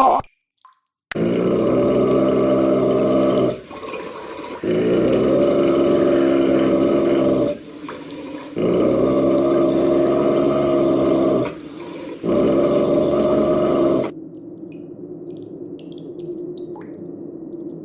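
Four long, low growls, each lasting about three seconds with short breaks between them, then a quieter stretch of dripping water near the end.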